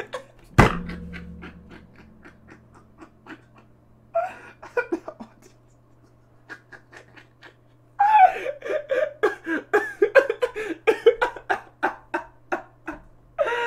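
A man laughing hard: a sharp thump about half a second in, then breathless, wheezing pulses of laughter that build into loud, rapid fits of laughter in the second half.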